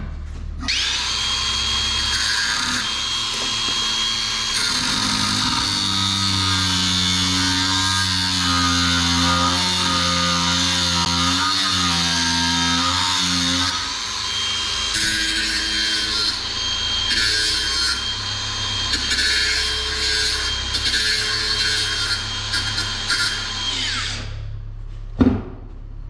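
Electric grinder running against metal with a steady high whine, grinding parts down to the same length. It starts just after the beginning, changes in sound about halfway through as the load shifts, and stops shortly before the end, followed by a single knock.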